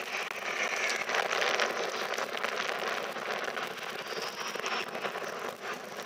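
Jet noise from two Alpha Jet trainers, each with twin turbofan engines, flying a pass: a steady rushing sound that swells slightly between one and two seconds in.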